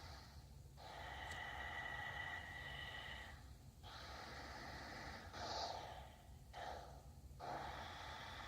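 LG V20 smartphone's speaker putting out harsh, hissing static in bursts broken by short gaps, with a steady high whine for about two seconds early on. It is a fault that occurs whenever the phone receives a call, cause unknown.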